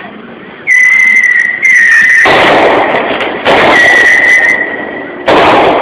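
Whistling fireworks going off: a loud, steady shrill whistle starts suddenly about a second in and comes back twice more, with bursts of hissing noise between and a last burst near the end.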